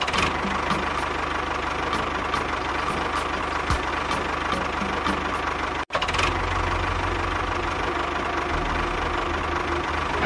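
An engine running steadily with a knocking beat. The sound cuts out for an instant about six seconds in and then carries on.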